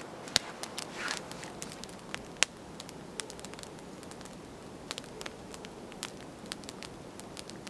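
Campfire of birch bark, twigs and split logs crackling as it catches, with irregular sharp snaps over a faint hiss; two snaps, about half a second and two and a half seconds in, stand out louder.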